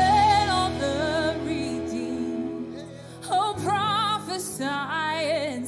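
A church worship band playing a slow worship song: a singer holds drawn-out, wavering notes over sustained chords.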